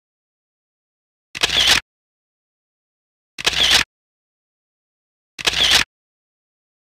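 Camera shutter sound effect snapping three times, evenly about two seconds apart, with dead silence in between.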